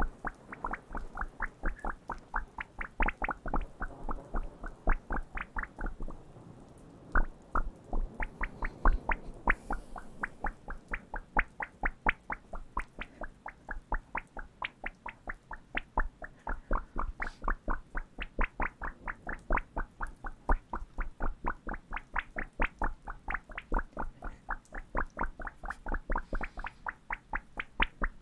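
Playing cards tapped and flicked close to a pair of microphones: a steady run of crisp taps, about three to four a second, with a short pause about six seconds in.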